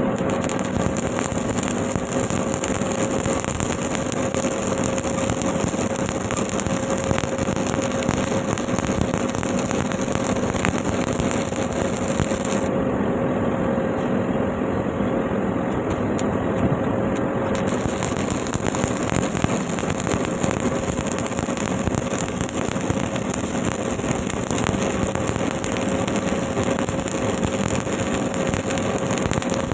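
Stick (SMAW) welding arc crackling and sizzling steadily as a bead is run, with a faint steady hum under it.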